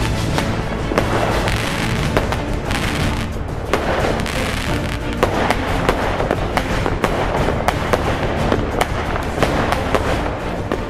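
Fireworks going off in quick succession, many sharp bangs and crackles several a second, over background music.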